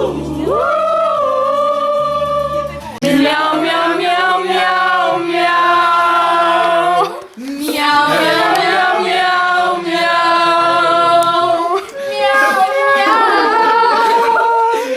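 Several voices singing a musical-theatre number together in held, sustained notes, over a low instrumental accompaniment; the singing breaks off briefly about seven seconds in.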